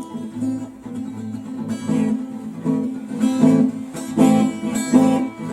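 Acoustic guitar strummed in rhythmic chords: the instrumental intro of a song.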